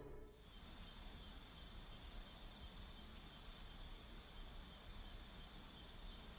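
Faint, steady, high-pitched chorus of insects trilling without a break.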